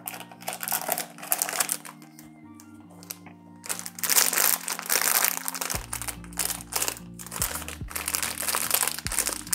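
Black foil blind-box bag crinkling loudly in three spells as it is handled and torn open by hand. Soft background music with steady held notes plays underneath.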